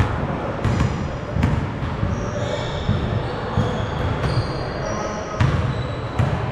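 A basketball bouncing on a court floor, thudding at an irregular pace, with short high sneaker squeaks in between.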